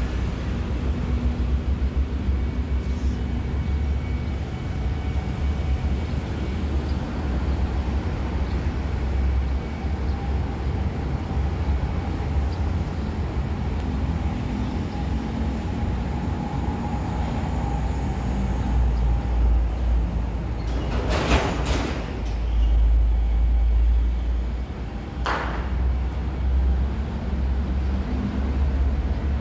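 Steady low outdoor rumble with a faint whine through the middle stretch. Two short hisses come about three-quarters of the way in, the first about a second long and the second briefer.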